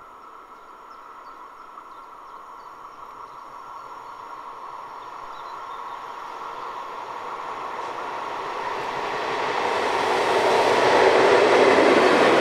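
Diesel locomotive 225 133 approaching and passing with a string of towed works locomotives. Its engine and running noise grow steadily louder until it draws level near the end.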